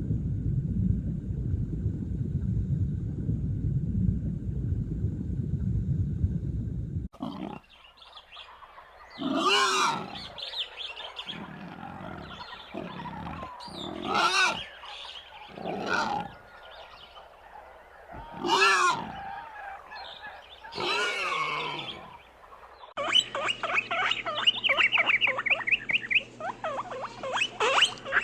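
Animal sounds: a low rumbling grunting for about seven seconds, then five drawn-out calls a few seconds apart, then rapid high-pitched chattering near the end.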